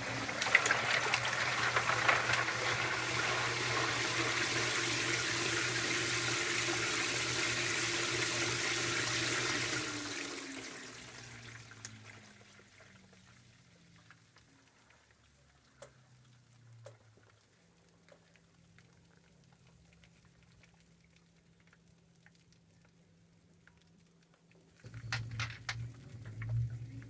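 A 2012 LG top-load washing machine: a loud rush of water in the tub over a low motor hum for about ten seconds, then dying away. A faint hum follows, and near the end the impeller motor starts moving the load again in pulses with light clunks.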